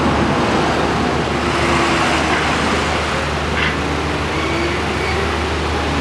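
Steady rushing noise of fast, turbulent river rapids in flood.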